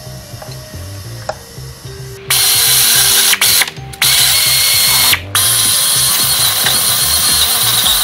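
A ratchet wrench running a bolt loose in an engine bay, a loud continuous ratcheting that starts about two seconds in and stops briefly two or three times. A quiet music bed runs under it.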